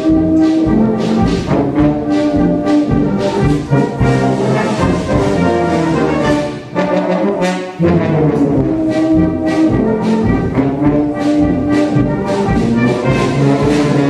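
Background music played on brass instruments, with a steady beat and a short lull about two thirds of the way through.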